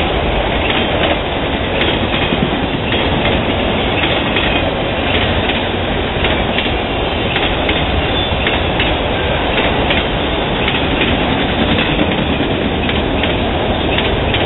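Autorack freight cars rolling past on steel wheels: a steady, loud rumble of wheels on rail, with scattered sharp clicks.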